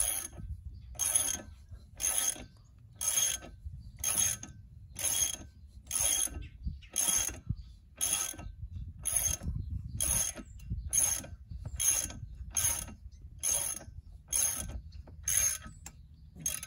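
Hand socket ratchet tightening an outboard's propeller nut, its pawl clicking in a short burst on each back-swing, about once a second and a little faster near the end.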